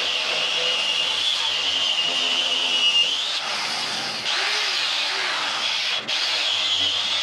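Electric grinder grinding down a piece of steel stock to flatten it: a steady high whine over a rough grinding hiss, wavering in pitch as the work is pressed, with a brief dip about six seconds in.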